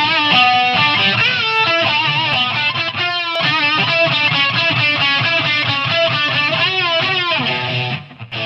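A guitar track playing through the Waves MondoMod modulation plugin, its amplitude and frequency modulation switched on, so the notes waver in pitch. The level drops briefly near the end.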